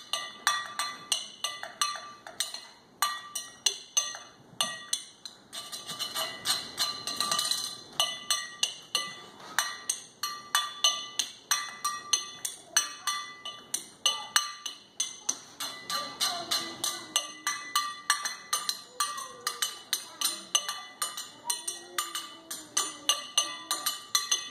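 A hand-held tin can struck quickly and repeatedly with a thin stick, giving a long run of sharp, ringing metallic clinks, several a second, played as a rhythmic tune.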